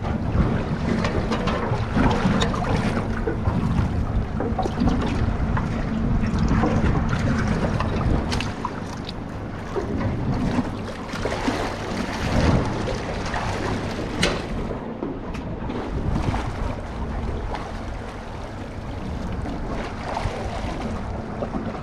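Wind buffeting the microphone and water slapping against the hull of a small boat at sea, with scattered knocks in the boat.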